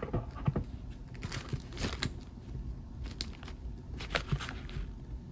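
Plastic and paper packets being handled, crinkling and rustling in irregular bursts with scattered small clicks and taps.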